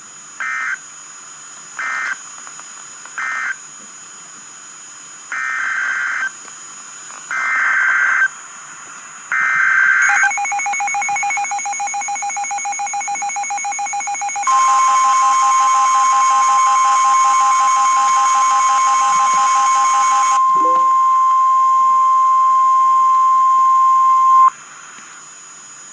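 Emergency Alert System digital data bursts: three short end-of-message bursts closing the marine warning, then three longer header bursts announcing the tornado warning. These are followed by a buzzy alert tone and then a steady, loud single-pitch weather-radio warning alarm tone of about ten seconds, which cuts off suddenly.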